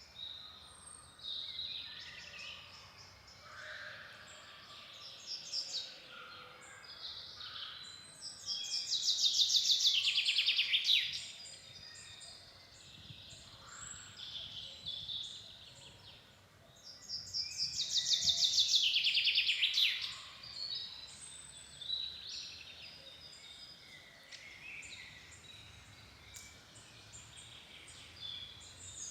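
Several songbirds calling and singing in woodland. Twice a louder, fast trilled song of rapidly repeated notes runs for a couple of seconds, falling slightly in pitch at the end, among scattered short chirps and whistles.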